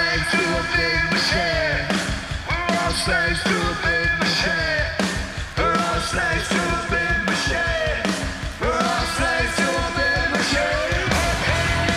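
Live hard rock band playing: electric guitars, bass and drums, with a male lead singer singing through a handheld megaphone.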